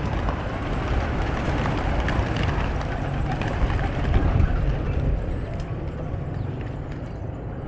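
Wings of a large flock of pigeons flapping and fluttering as the birds come down to land together, loudest about four seconds in.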